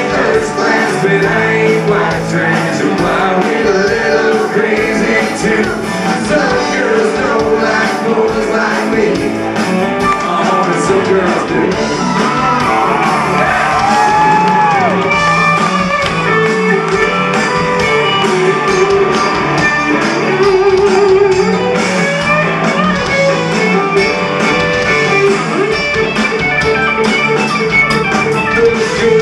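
A country-rock band playing live and loud: a man singing lead over electric guitars, bass guitar, drums and keyboards.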